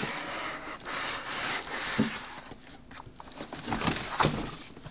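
Rustling and scraping of a cardboard box, moulded pulp packing inserts and a plastic sleeve as packing is pulled out of a laptop box, with a few light knocks, the clearest about two seconds in and near the end.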